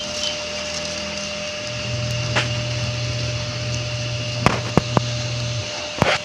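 Pieces of firewood being fed into a small wood-fired stove, knocking against each other and the stove several times, over a steady mechanical hum.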